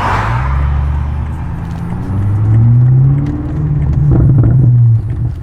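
A car passing, then a car engine running loud, its pitch rising after about two seconds and holding high before it falls away near the end.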